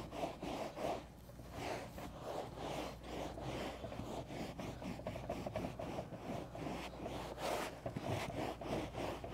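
Microfiber terry towel rubbed hard back and forth over a car's carpet floor mat in quick, repeated scrubbing strokes, wiping the sprayed carpet cleaner and loosened grime out of the fibres.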